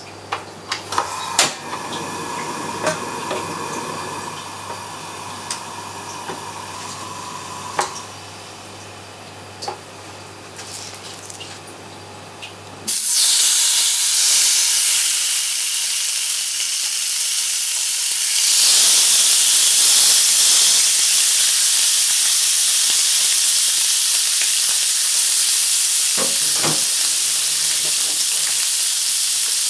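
An oiled grill pan heating, with a few light clicks and ticks over a low hum; about 13 seconds in, a loud sizzle starts as a block of raw skipjack tuna (bonito) goes into the hot oil, and it grows louder around 18 seconds as a second block is added, sizzling steadily as the fish is seared.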